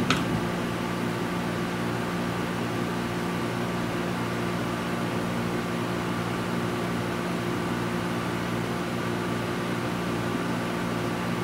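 Steady electrical hum with an even hiss, a few fixed low tones held throughout, and a brief sharp click at the very start.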